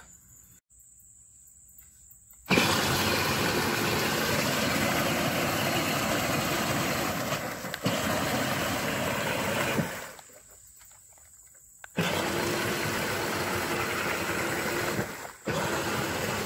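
Power Wheels Jeep's electric drive running as its paddle-studded rear wheels churn and splash through water, a steady noisy rush with a faint whine. It starts about two and a half seconds in, stops around ten seconds, and comes back about two seconds later.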